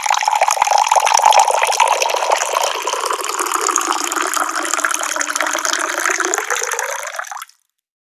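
Tap water pouring in a steady stream, which cuts off suddenly about seven and a half seconds in.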